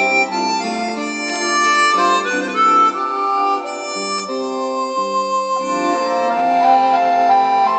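Harmonica music: held chords with a melody over them, the notes changing every half second or so, at a steady loud level.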